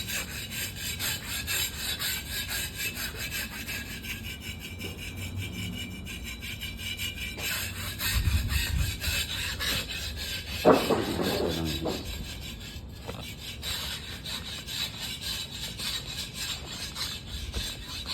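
Quick, rhythmic scraping strokes over a rough surface, with a sharp knock and a short noisy burst about eleven seconds in.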